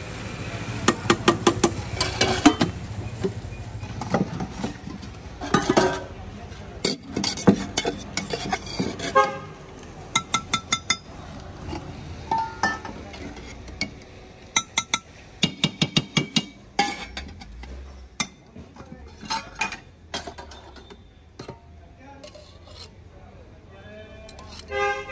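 Steel ladle and utensils clinking and tapping against steel containers and a cast-iron dosa griddle in quick runs of clicks, over a low street-traffic rumble. A vehicle horn sounds near the end.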